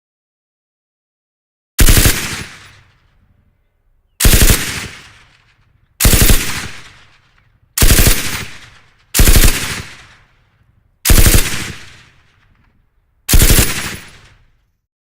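Machine gun firing seven short bursts of automatic fire, each a quick rattle of rounds dying away over about a second, with short gaps between bursts.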